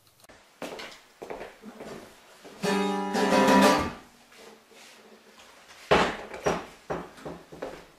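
Acoustic guitar strings sounding as one strummed chord, which rings for about a second, amid light knocks and handling noise. A sharp knock comes about six seconds in, followed by a few smaller clicks.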